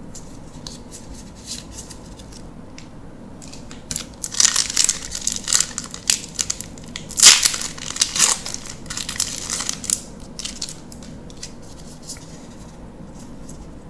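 A Magic: The Gathering booster pack's foil wrapper being torn open and crinkled by hand. A crackling, tearing burst starts about four seconds in, runs for several seconds and is loudest about halfway through, followed by a few faint clicks as the cards are handled.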